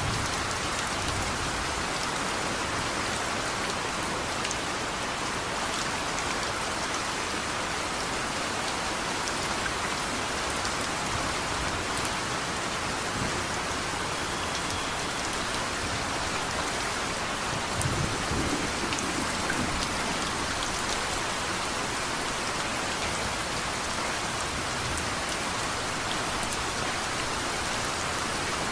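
Steady rain falling, an even hiss of many drops, with a brief low rumble of distant thunder about two-thirds of the way through.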